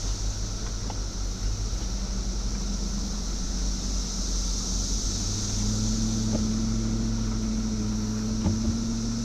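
Off-road vehicle engine running steadily, its tone growing stronger about six seconds in, with a couple of faint knocks near the end.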